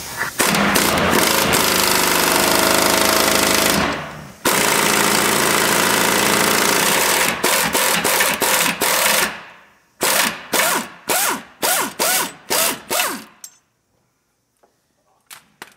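Pneumatic air hammer driving out the upper control arm's pivot pin on a Chevy 1500 truck. It runs in two long runs with a short break about four seconds in, then in about seven quick short bursts, and stops about thirteen seconds in.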